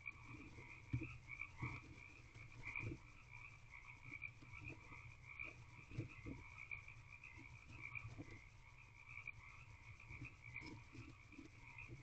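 Faint chorus of frogs calling continuously in a steady pulsing trill. Now and then come soft bumps and scratches as the barn owl shifts and picks at the wood-shaving bedding of the nest box.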